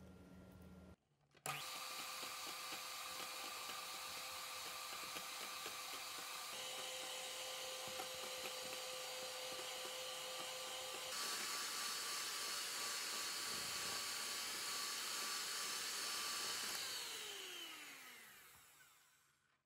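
Handheld milk frother whisking a milky mixture in a glass jug: a steady small-motor whine that gets a little louder partway through, then winds down with a falling pitch near the end as the whisk spins to a stop.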